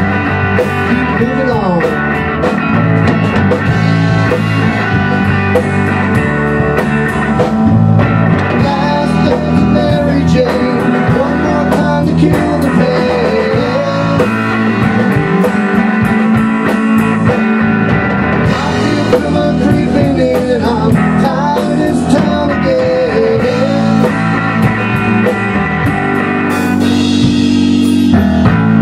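Rock band playing live: electric guitar, electric bass and a Tama drum kit playing together.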